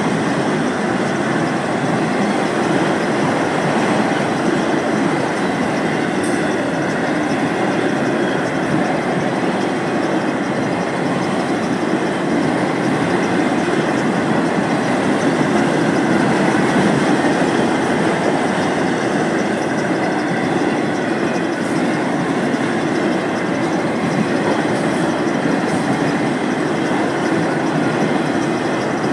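Enclosed autorack cars of an FEC freight train rolling steadily past: continuous, even noise of steel wheels on rail.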